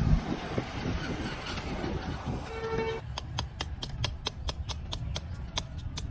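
Steady low rumble with a short horn-like toot about halfway through, then rapid light taps, about four to five a second, to the end.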